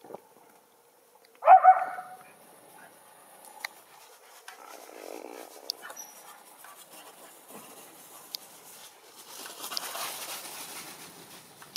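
Schipperke barking twice in quick succession about a second and a half in, then a softer rustling noise near the end.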